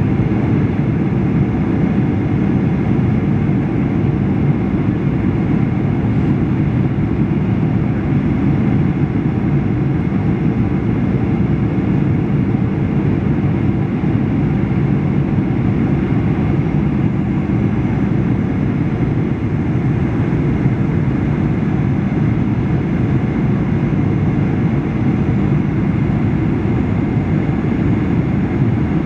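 Steady cabin noise inside a Boeing 737-800 on approach, heard from a seat beside the wing: its CFM56-7B turbofan engine and the rushing airflow make an even, deep drone with faint steady tones over it.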